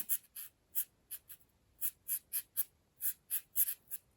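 A cat's paws and claws scratching and scuffling on carpet during play: about a dozen short, dry scratches at an uneven pace.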